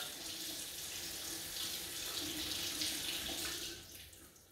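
Bathroom sink faucet running hot water into the basin, a steady splashing flow that is shut off near the end.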